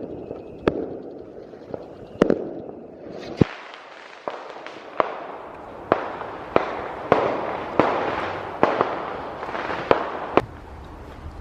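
Fireworks going off: a string of sharp bangs at uneven intervals, roughly one a second, with crackling between them that thickens after a few seconds.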